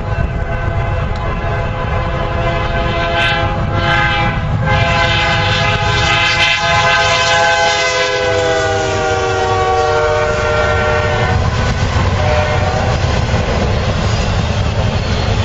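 Freight train locomotives passing close by with the air horn blowing: a chord of several tones held for several seconds, dropping in pitch as the locomotives go past, then cutting off about eleven seconds in. The steady rumble and rattle of the flatcars rolling along the track runs underneath.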